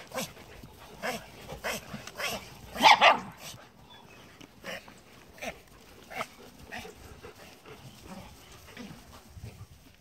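Puppies playing, with short barks and yips, the loudest a sharp bark about three seconds in; quieter after the middle.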